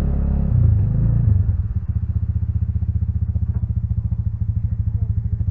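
Plow-equipped ATV engine running, swelling briefly about a second in as it pulls up, then settling into an idle with a rapid, even putter.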